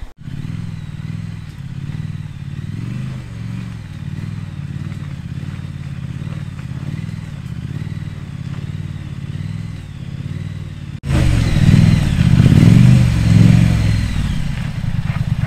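Triumph Street Scrambler's 900cc parallel-twin engine as the bike is ridden slowly along a rough track, the engine note rising and falling with the throttle. About eleven seconds in it jumps to much louder and closer, then settles into an even low beat near the end.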